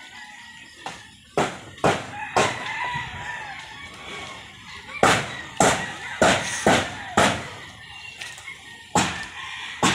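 Repeated sharp metallic bangs and clatter, each with a short ringing tail, at irregular intervals, from corrugated iron roofing sheets being pulled loose and handled; a rooster crows in the background.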